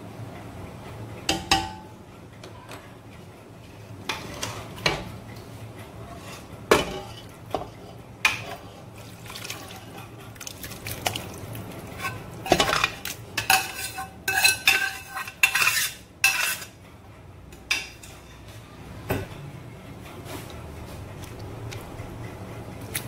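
A slotted spatula knocking and scraping against a nonstick cooking pot as rice and meat are spread, with a steel pot clinking on the rim while curried mutton is poured in. Scattered single knocks, then a dense run of ringing metallic clinks about halfway through.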